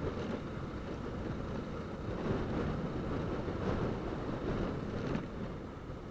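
Motorcycle engine running as the bike rides along, with wind noise on the microphone.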